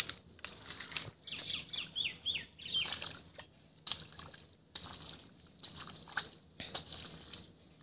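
Water splashing and dripping in short irregular splashes as hands work through shallow muddy canal water. A bird gives a quick run of chirps between about one and three seconds in.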